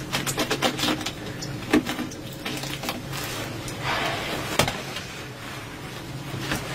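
Scraping and knocking as baked flatbreads are pried off the hot inner wall of a pit tandoor with a metal scraper and lifted out: a quick run of clicks at first, a sharp knock a little before two seconds, a scrape and another sharp knock after four seconds. A low steady hum runs underneath.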